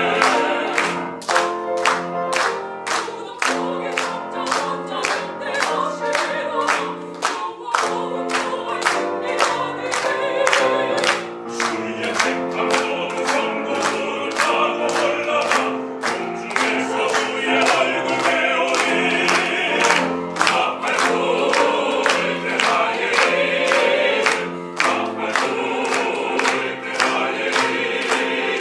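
Small mixed vocal ensemble of men and women singing a gospel hymn together, over an accompaniment of steady, rhythmically repeated chords.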